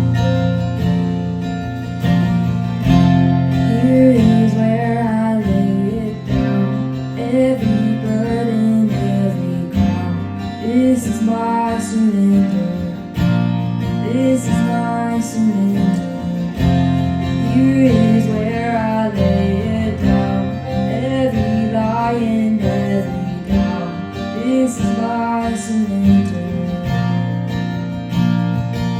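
Acoustic guitar strumming chords with a band, while a repeated sliding melody phrase recurs every couple of seconds over the top.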